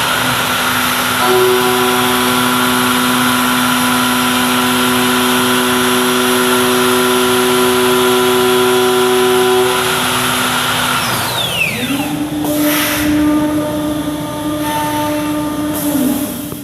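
CNC woodworking machining centre's spindles running steadily with a hiss of cutting. A little past halfway one tone winds down in a falling whine and another steady tone starts, followed by a short burst of hiss.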